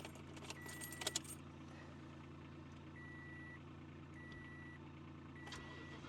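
Toyota Tundra pickup idling steadily after a cold start, with a short electronic warning chime repeating four times and a brief jingle of keys and clicks about a second in.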